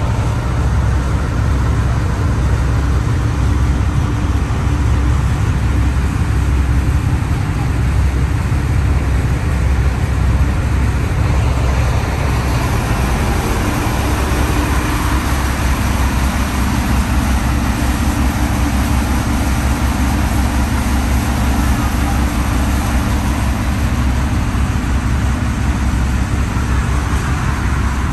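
Tour boat's engine running steadily with a heavy low rumble and a hiss over it.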